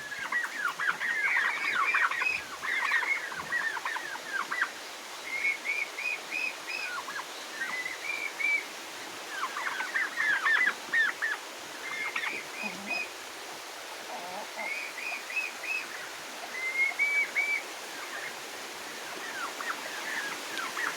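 Poultry calling: bursts of many short, quick chirps and short runs of repeated rising notes, over a steady hiss of rain.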